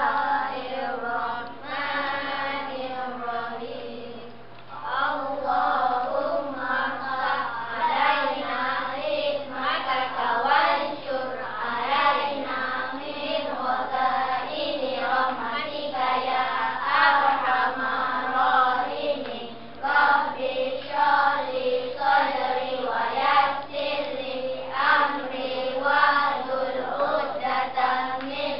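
A class of young schoolchildren reciting an Arabic du'a (prayer) together in unison, in a sing-song chant phrase after phrase.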